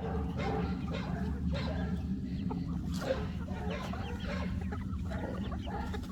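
A flock of chickens clucking, many short overlapping calls, over a steady low rumble.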